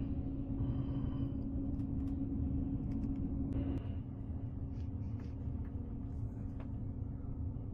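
Passenger train running, a steady low rumble heard from inside the carriage, with a constant hum that drops away about four seconds in and a few faint ticks.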